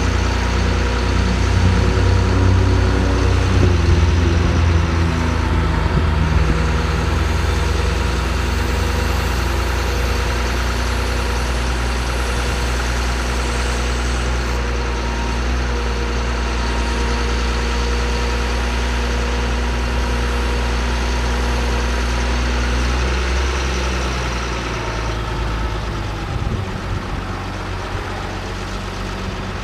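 2006 GMC C7500 truck's engine running steadily, its note shifting a few seconds in and dropping lower near the end.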